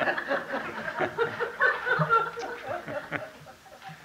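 A live audience chuckling and laughing, with many voices overlapping, dying away near the end.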